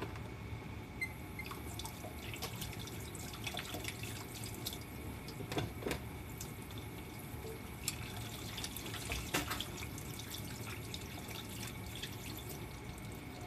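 Water running from a kitchen tap with scattered splashes, turned on about a second in and off near the end.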